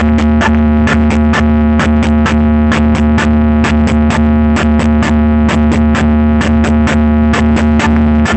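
Electronic dance track played very loud through a large DJ speaker stack: a deep held bass and sustained synthesizer tones under a fast, even beat of sharp hits.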